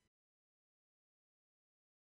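Complete silence, with no sound at all.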